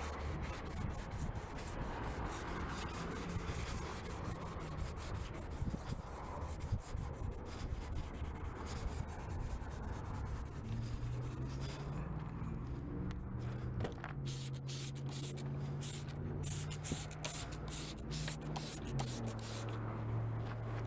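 Sandpaper rubbed back and forth by hand over a faded plastic rear indicator lens on a Mustang, in quick, continuous scratchy strokes, abrading the oxidised surface layer of the plastic.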